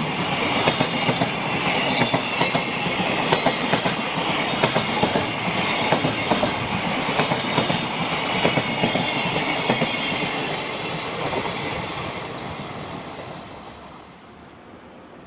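A freight train of container flatcars, many of them empty, rolling past with a steady clickety-clack of wheels over rail joints. It fades away over the last few seconds as the end of the train goes by.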